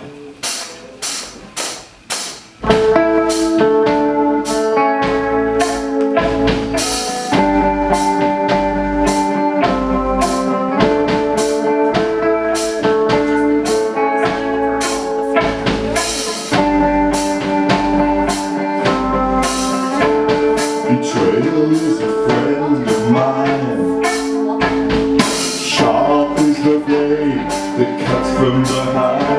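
Rock band playing live: Rickenbacker-style electric bass, red electric guitar and a drum kit. A few separate hits open it, then the full band comes in together about three seconds in, with a steady drumbeat under held guitar and bass notes.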